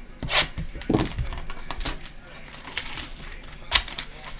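Hands handling a cardboard trading-card box and a plastic box cutter on a cloth mat: a few scattered knocks and papery rustles, the loudest just before four seconds in as the box's flap is opened.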